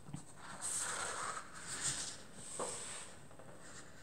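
Faint soft rustling in a few short stretches, with a light click a little past halfway through.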